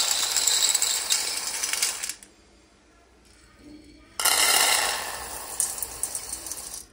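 Dried chickpeas poured from a glass bottle into a stainless steel bowl: a dense hissing rattle of many small clicks as the grains hit the metal. After a short silence, split yellow dal is poured the same way into another steel bowl.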